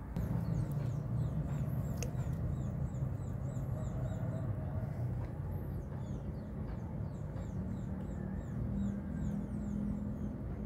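Outdoor ambience: a steady low rumble, with short high chirps repeating about three times a second through much of it and a single click about two seconds in.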